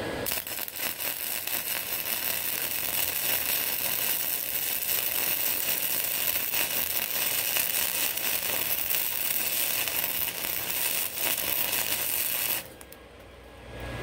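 Flux-core wire welder arc crackling steadily as a bead is run over a crack in a cast iron engine block, stopping abruptly about twelve and a half seconds in.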